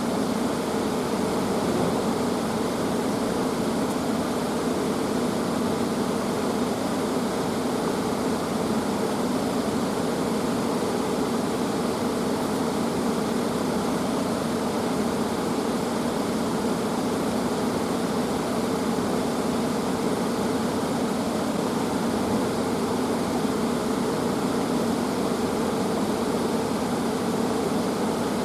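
Steady, unbroken rushing noise with no separate events, fuller in the lower-middle range.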